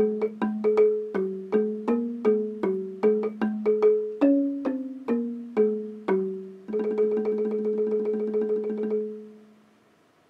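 Thai ranat xylophone struck with two padded mallets in octaves, a melody of about two notes a second, then a fast tremolo on one octave held for about two seconds before it dies away near the end.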